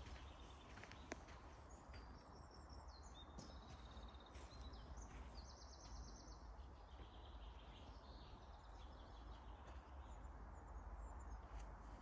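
Faint songbird song in woodland: several short phrases of quick repeated high notes, one after another. A low steady rumble lies under it.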